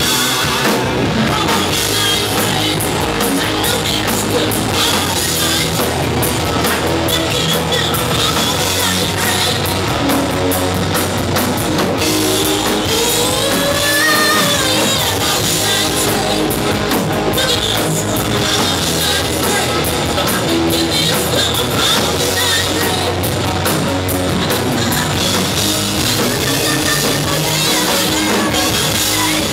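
Live rock band playing loudly: electric guitar through Marshall amps, a drum kit and a singer's vocal.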